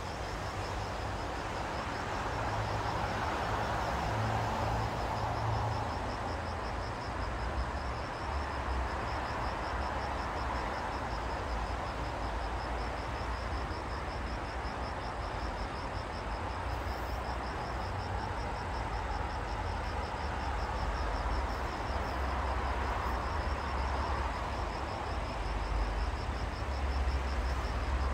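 Steady open-air ambience: an even wash of noise that swells and eases slowly over a low rumble, with an insect's rapid, evenly pulsing high trill over it.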